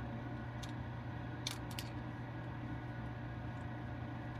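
A steady low mechanical hum. Over it come a few faint metallic clicks: needle-nose pliers set in the dimples of the metal retaining ring on a laser lens tube, twisting the ring off.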